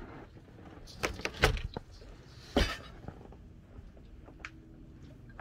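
A door being handled: a few sharp clicks and knocks, the loudest about a second and a half in, then another knock about a second later.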